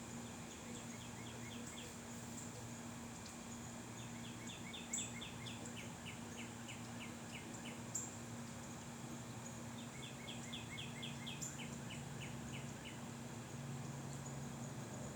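A small songbird singing three trills, each a quick run of falling notes (about the first second, from about 4 to 7 seconds in, and from about 10 to 13 seconds in). Under it runs a steady low hum, with a few sharp high ticks.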